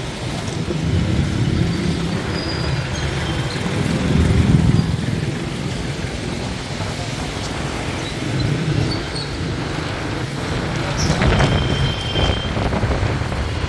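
Motorcycle running on the move through town traffic, heard from the pillion seat: a steady low engine and road rumble that swells and eases, loudest about four seconds in. Near the end come a short high-pitched tone and a few clicks.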